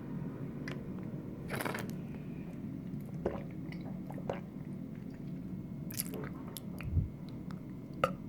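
Wet mouth and throat sounds of someone swallowing water: scattered clicks and squelches, with a louder low gulp about seven seconds in.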